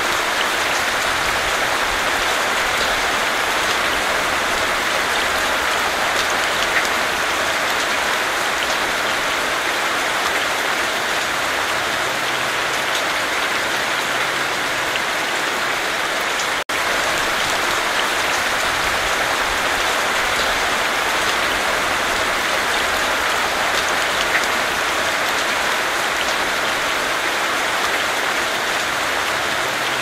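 Heavy summer rain falling steadily, an even hiss of drops splashing on the ground, with a momentary gap just past halfway.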